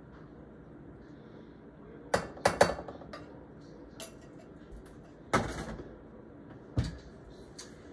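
Glass jar and spoon being handled: three quick sharp knocks and clinks a little after two seconds in, then single knocks at about five and a half seconds, with a short ring, and near seven seconds.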